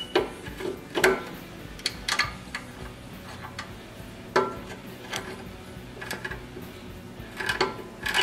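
Hand tool clinking and scraping on the metal choke-cable clamp and bracket of a Tecumseh small-engine carburetor as the clamp screw is tightened: a handful of sharp, irregular metallic clicks.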